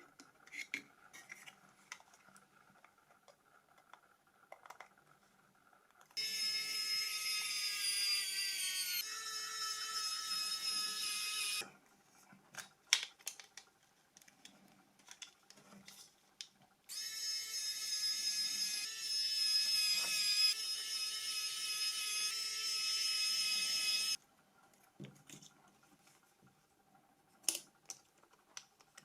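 A small handheld electric tool's motor whines in two runs, one of about five seconds and one of about seven, its pitch dipping slightly in the first run. Light clicks of handling come between and after the runs.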